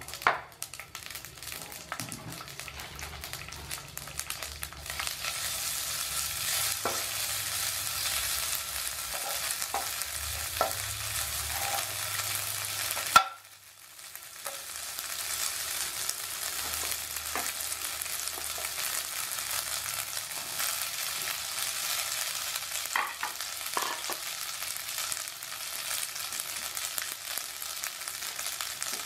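Yakisoba noodles sizzling as they fry in oil in a non-stick pan, with the scrape and clack of a utensil turning them. The sizzle grows louder about five seconds in; about halfway through there is one sharp click, then the sizzle briefly drops away before it returns.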